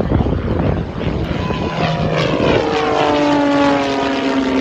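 Edge 540 aerobatic plane's propeller and six-cylinder piston engine flying past at power. Its pitch falls steeply about two seconds in as it goes by, then holds as a steady drone.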